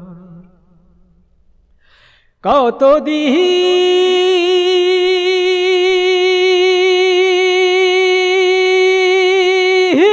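Male singing voice: after the previous line fades into about two seconds of near quiet, it comes in sharply with a few quick turns. It then holds one long note with slight vibrato for about six seconds, dropping to a lower note right at the end.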